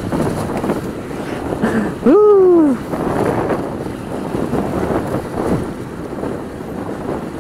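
Wind buffeting the camera microphone while riding a Honda scooter on the road, with the scooter's engine and tyre noise underneath. About two seconds in, a short wordless vocal sound rises and then falls in pitch, the loudest moment.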